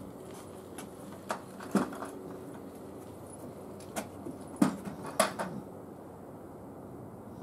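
Low, steady hum of a distant airliner's jet engines, broken by several sharp clicks and knocks close to the microphone: a pair about a second and a half in, then a cluster between four and five and a half seconds.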